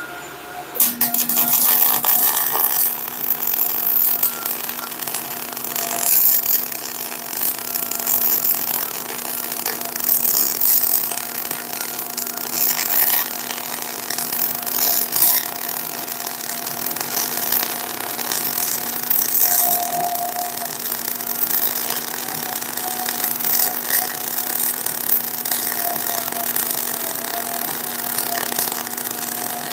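MIG welding arc crackling steadily as a bead is laid on a steel reinforcement plate on a truck rear axle housing, with a steady low hum underneath. The arc strikes about a second in and runs without a break.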